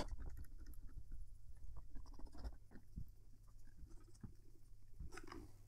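Cloth rag buffing dried Rain-X off a motorcycle helmet visor: faint rubbing and soft scuffs, with small knocks from the helmet being handled.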